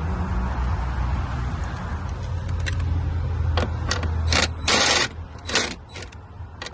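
Plastic interior car trim being worked loose by hand: scattered light clicks, then a loud scrape about four and a half seconds in and a shorter one a moment later.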